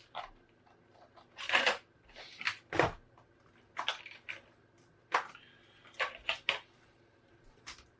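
Irregular sharp plastic clicks and taps as a replacement keyboard is pressed down into an Acer Aspire 5742 laptop's top case and its retaining clips are pushed into place.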